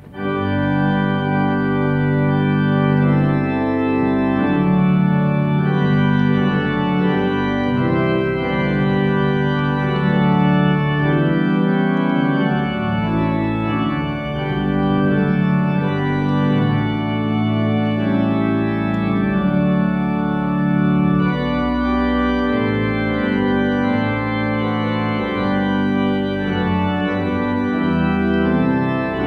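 Large three-manual church pipe organ playing full, sustained chords that change in steady succession, coming in right at the start after a brief drop in sound.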